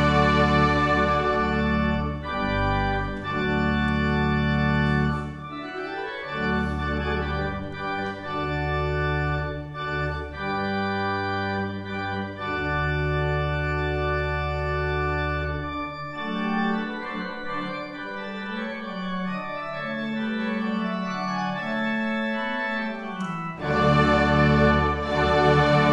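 Church pipe organ playing long held chords over a bass that steps from note to note. In the middle the low notes fall away and a higher line moves more freely, before full chords come back near the end.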